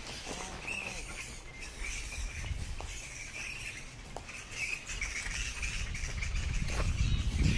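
A roosting colony of flying foxes (fruit bats) in the treetops: a continuous chatter of short, high squeaks and screeches from many animals at once. A low rumble grows under it toward the end.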